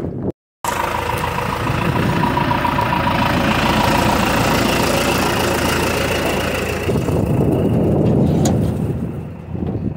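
A John Deere 5525N tractor's diesel engine idling steadily, with a faint whine over the running, growing quieter near the end.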